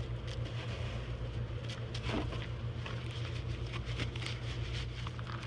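A steady low machine hum, with light rustling and small clicks from gloved hands working two-part epoxy putty onto a threaded pipe fitting.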